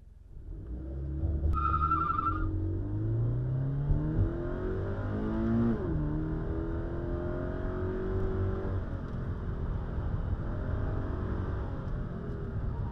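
Toyota 86's flat-four engine, heard from inside the cabin, accelerating with its revs climbing, then a gear change about six seconds in drops the revs before it runs on at steadier revs. A brief beep sounds about a second and a half in.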